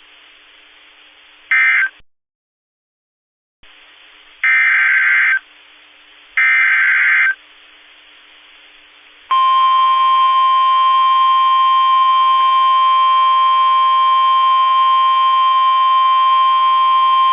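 Emergency Alert System data bursts: three short, harsh buzzing screeches of digital code, followed by a steady, loud electronic alert tone lasting about nine seconds. This is the 1050 Hz warning alarm tone of NOAA Weather Radio, heard over faint radio hiss.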